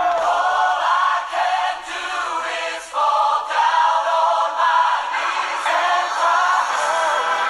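Christian worship song with voices singing together like a choir, the melody rising and falling; the level dips briefly about two seconds in.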